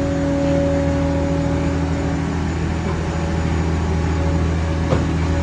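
Heavy-haul transporter moving a refinery hydrotreating reactor: a steady low mechanical drone and hum from the rig and its tyres, with one short sharp clank of steel about five seconds in.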